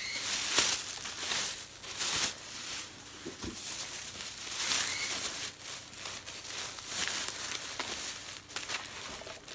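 Crinkling and rustling of paper and packaging being handled and shuffled, in irregular bursts.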